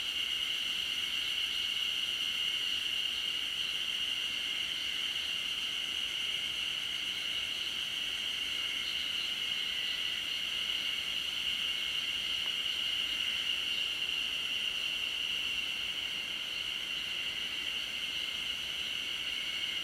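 Chorus of many Ezo spring cicadas (Terpnosia nigricosta) calling at once, their overlapping calls merging into a steady, unbroken high-pitched drone.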